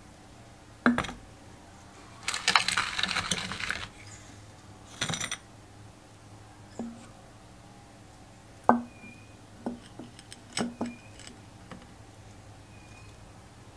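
Sharp clinks and knocks of a metal cup and a glass jar being handled and set against a vise and engine casing, with a longer rattling clatter about two to four seconds in and scattered single clinks after.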